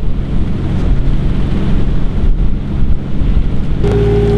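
Oyster boat's engine running under way, with wind buffeting the microphone and the wash of the wake. Near the end the sound switches abruptly to a steadier machine hum with a high whine.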